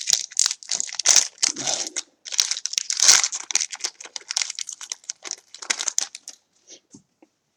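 Trading-card pack wrapper crinkling and tearing as it is opened, with a dense run of crackles that stops about six seconds in, leaving a few faint ticks.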